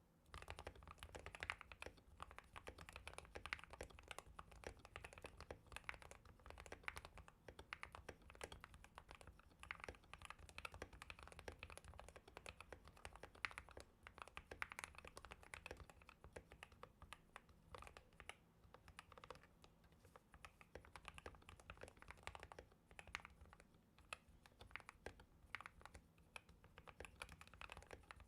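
Continuous fast typing on a custom GK61 mechanical keyboard with lubed Gateron optical black linear switches and lubed PBT keycaps: a dense, uneven stream of soft keystroke clicks, beginning abruptly and not pausing.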